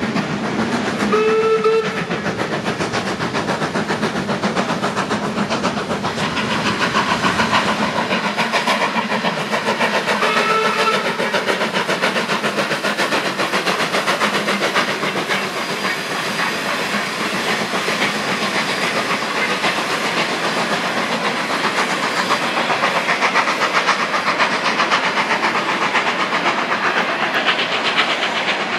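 Narrow-gauge steam train running past with rapid, steady exhaust beats and the clatter of the train on the rails. Two short steam whistle toots sound, about a second in and again about ten seconds in.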